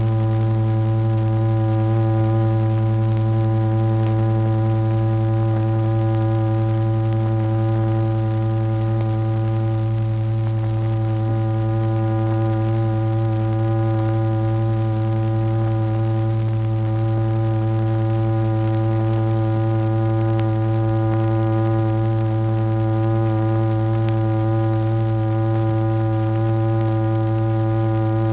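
Steady low drone with a buzzy row of overtones, holding one pitch without change. It is the audible tone that drives a cymatics membrane, shaking iron particles into spiky figures.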